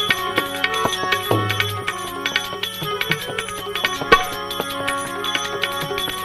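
Instrumental interlude of a Gujarati bhajan: a steady tabla rhythm under sustained melodic instruments, with no singing.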